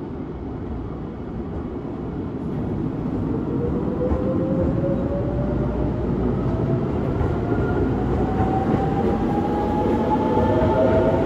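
JR West 681-series limited express electric train pulling out of the station, its traction motors giving a whine that rises steadily in pitch as it picks up speed. A rumble of the cars rolling past grows louder under it.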